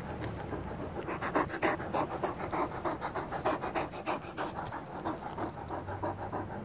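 Large dog panting close up, quick rhythmic open-mouthed breaths, strongest through the middle and easing off near the end.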